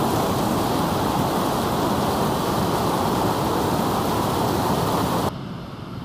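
Steady rushing of a 50-metre waterfall heard close, a dense even wash of falling water. About five seconds in it drops suddenly to a quieter, more distant rush.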